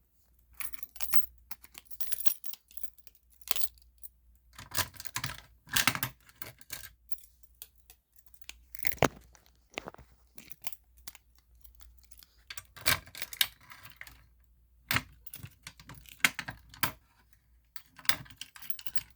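Irregular clicks, clacks and rattles of a Simplex fire alarm pull station being handled and reset by hand.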